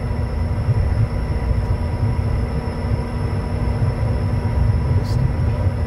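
Cockpit noise of a Bombardier Challenger business jet rolling along the runway after touchdown: a steady low rumble with a constant hum and high whine over it.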